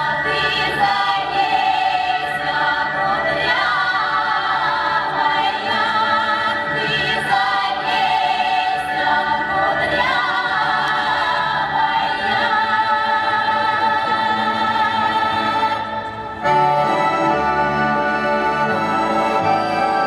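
A recorded Russian folk-style song with a women's choir singing over instrumental accompaniment, played through loudspeakers. About sixteen seconds in, the singing stops with a brief drop in level, and an instrumental passage of steady held chords begins.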